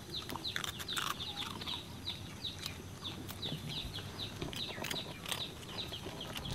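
Birds chirping: a quick run of short, high notes that each slide downward, about three or four a second, with a few faint clicks among them.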